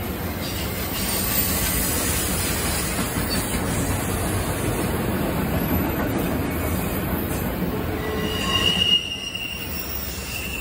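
CSX autorack freight cars rolling past on curved track, with a steady rumble of wheels on rail. A high wheel squeal comes in near the end.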